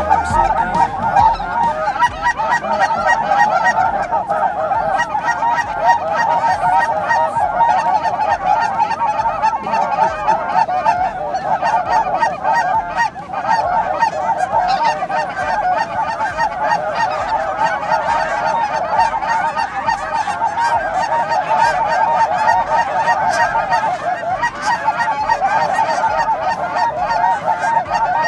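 A large flock of Canada geese honking without pause, many calls overlapping into a dense, loud chorus.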